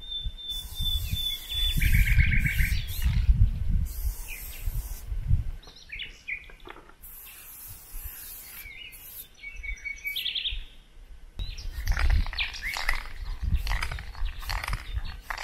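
Birds chirping and trilling, with several bursts of aerosol spray paint hissing from a can, each a second or so long. Low wind rumble on the microphone comes and goes.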